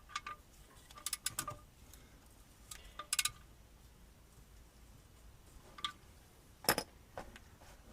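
Sharp metallic clicks and clinks with a faint ring: a cluster about a second in, another around three seconds in, and one louder click near seven seconds. These come from metal parts being handled while the oil sump drain plug is refitted with a new washer.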